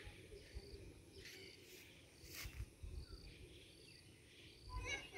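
Quiet rural ambience: an insect, such as a cricket, chirping in short high notes that repeat every second or less, over faint low rumbles and a few soft rustles.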